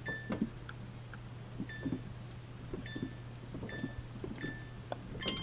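Electric oven's touch control panel beeping as its buttons are pressed to set the preheat temperature: a short, high beep about once a second, then a quick run of beeps near the end.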